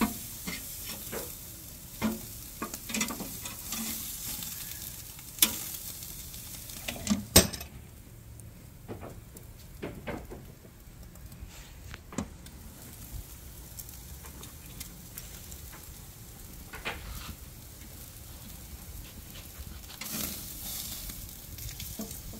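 Steaks sizzling on the grate of a barrel smoker-grill over the fire, with sharp clicks of metal tongs against the grate now and then, the loudest about seven seconds in.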